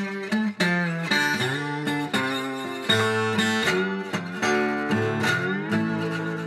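Background music: a melody of plucked string notes, some of them sliding in pitch.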